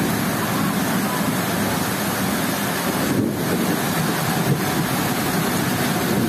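Suburban EMU train running fast through a station in heavy rain: a steady, loud rush of the passing coaches mixed with the hiss of the downpour.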